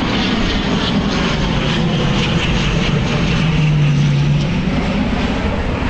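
ATR-42 twin-turboprop airliner landing, its engines and propellers running with a steady rushing noise and a low propeller tone that grows stronger a little past the middle.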